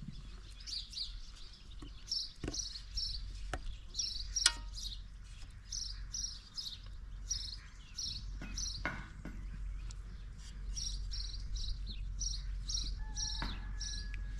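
High chirping repeated about three times a second, with a few light knocks as slices are laid into a cooking pot.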